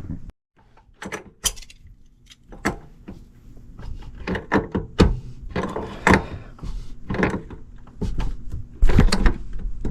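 Irregular clicks, knocks and rattles of condensate drain pipe, fittings and tools being handled while a new drain trap is put together, over a faint steady low hum.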